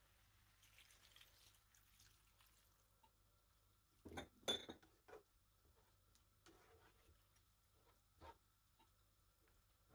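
A plastic slotted spatula knocking and scraping against a nonstick wok while stirring vegetables and curry sauce. A cluster of clatter about four seconds in is the loudest part, followed by a few lighter single knocks.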